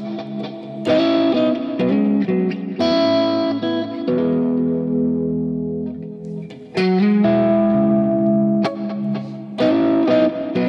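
Electric guitar on its neck-and-middle single-coil pickup position, played through an Axe-Fx III FAS Express amp model with the guitar's volume turned down a little. Chords are struck about four times and left to ring out and decay, with slight grit, compression and delay.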